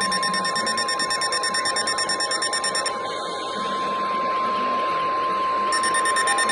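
NOAA Weather Radio warning alarm: a steady, single-pitched 1050 Hz attention tone that signals an alert message is about to follow. Over it, a second rapidly pulsing high beep stops about three seconds in and starts again near the end.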